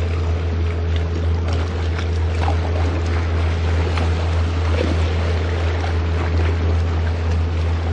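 A motorboat engine running steadily with a constant low hum, over splashing water and waves on choppy sea.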